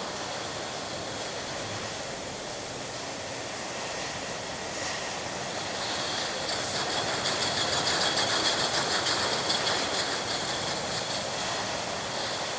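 Milk bottling plant machinery running steadily, with a dense, rapid clattering that grows louder about halfway through.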